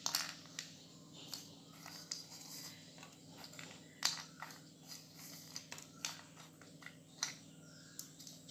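Flat metal spatula stirring and scraping thick moong dal halwa in a pan, giving irregular clicks and scrapes of metal on metal, over a steady low hum.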